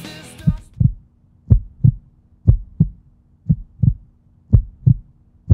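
Heartbeat sound effect: pairs of low thumps repeating about once a second, as rock music fades out at the start.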